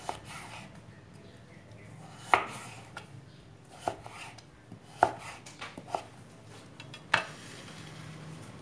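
Kitchen knife cutting a carrot into thin strips on a wooden cutting board: about six sharp, irregularly spaced knocks as the blade hits the board.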